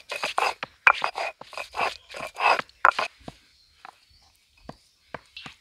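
Stone roller scraping back and forth over a stone grinding slab, crushing fresh root, about two strokes a second. After about three seconds the strokes stop and only a few light knocks follow.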